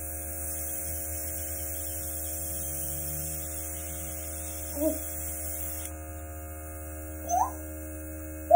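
Airbrush makeup compressor running with a steady electric hum, and air hissing from the airbrush gun until it stops about six seconds in.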